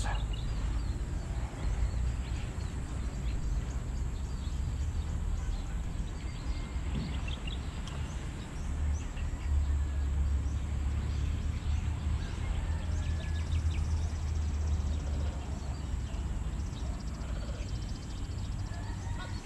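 Outdoor ambience: a steady low rumble that grows heavier for several seconds in the middle, with a few short runs of faint high chirping.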